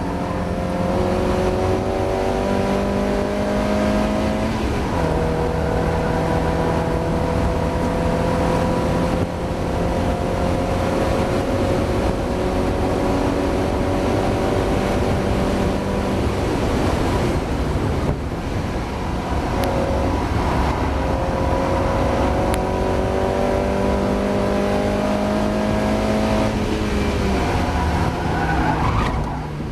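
Mazda MX-5 race car's four-cylinder engine under hard acceleration on track. Its pitch climbs slowly through long pulls, broken by a few sharp drops at gear changes.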